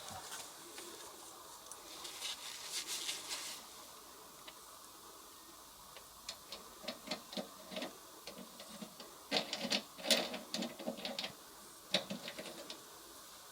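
Scattered light clicks, taps and rustling from hands working on an air conditioner being dismantled and removed, with a cluster of louder clicks about ten seconds in.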